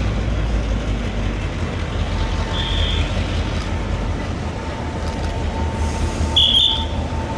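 Train moving along the track: a steady low rumble, with a faint steady hum coming in about two seconds in. Two brief high squeaks, one near the middle and one near the end.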